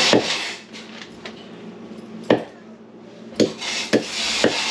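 Knife chopping chicken feet on a wooden chopping block: about five sharp chops, irregularly spaced, with a hiss under the first and the last few.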